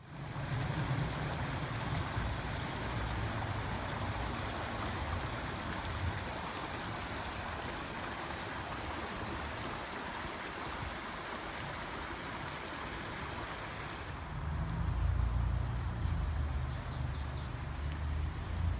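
Creek water rushing over a small rocky cascade, a steady hiss-like flow. About fourteen seconds in the water sound thins and a low, uneven rumble grows louder.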